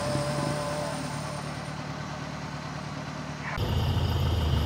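Off-road 4x4 vehicle engine running steadily. About three and a half seconds in, the sound changes abruptly and becomes louder and deeper.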